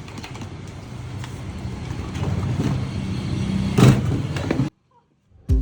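A motor vehicle engine running steadily and growing louder, with a sharp knock about four seconds in. It cuts off abruptly, and music starts right at the end.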